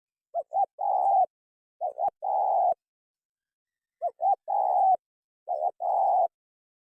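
Spotted dove cooing: four calls, each made of two short notes followed by a longer, rolling coo.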